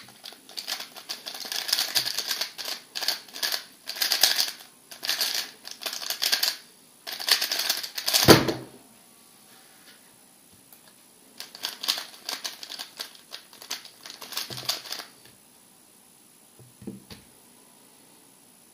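Fast plastic clicking and clacking of a MoYu RS3 M 2020 3x3 speedcube being turned in quick bursts, ending about eight seconds in with one loud knock as the cube is put down and the timer stopped. After a pause of a few seconds, the cube is turned rapidly again for several seconds as it is scrambled.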